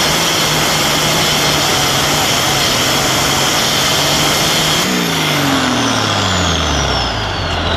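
International Harvester 5088 Super Farm pulling tractor's turbocharged diesel engine held at high revs at the end of a pull. About five seconds in it is throttled back: the engine note falls to idle over a couple of seconds while the turbo's high whistle winds down in pitch.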